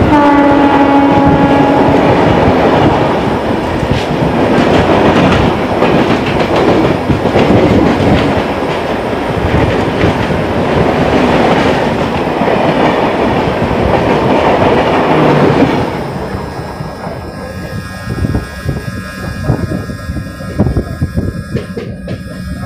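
A train horn sounds for about two seconds, then a passing train hauled by an Indian Railways electric locomotive rushes and clatters by alongside on the next track. It cuts off suddenly about 16 seconds in, leaving the quieter clatter of the local train's own wheels over the rail joints.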